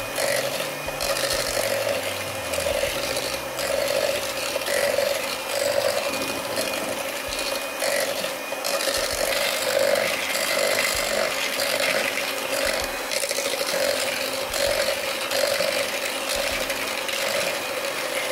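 Electric hand mixer running steadily with its twin beaters in the bowl, creaming butter and granulated sugar. A gritty, rasping scrape under the motor's hum swells and fades about once a second.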